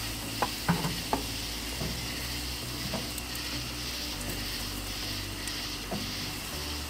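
Ribeye steak sizzling on a hot grill grate over red oak coals, a steady hiss. A few sharp clicks in the first second or so, tongs against the grate.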